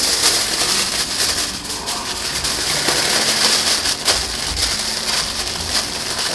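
Aluminium foil crinkling and crackling with many small clicks as it is folded into an elongated packet around alder wood chips.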